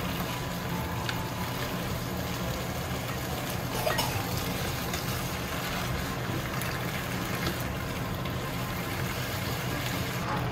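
Pieces of meat sizzling in a frying pan as they are turned with a spatula and tongs, over a steady low hum, with a sharp utensil clack about four seconds in.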